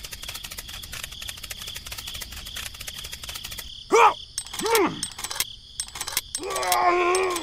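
Crickets chirping in a steady, rapid high trill. Two short voice-like squeaks falling in pitch come about four and five seconds in, and a longer wavering vocal sound follows near the end.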